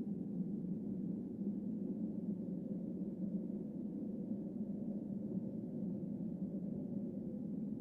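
A low, steady drone, with a faint held tone rising over it near the end.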